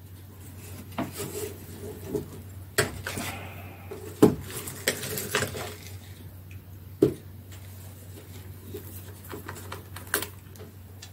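Irregular knocks, taps and clicks of a Roberts R200 portable radio's case being closed, turned over and handled on a tabletop, the sharpest knock about four seconds in. A low steady hum runs underneath.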